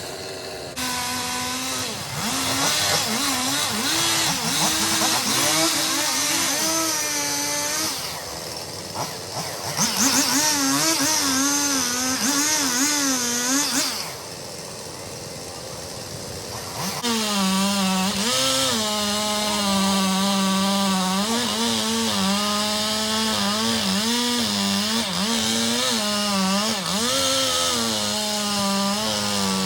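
Chainsaw running and cutting, its engine pitch wavering up and down as the chain bites under load. About halfway through it drops quieter for a few seconds, then comes back loud and steady.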